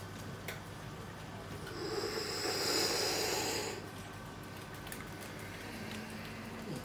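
One long, noisy breath close to the microphone, swelling for about two seconds in the middle over a steady low background hum.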